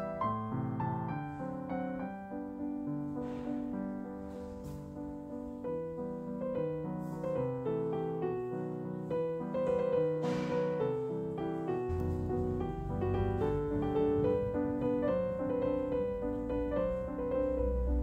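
Background piano music: a slow melody of separate notes over low chords.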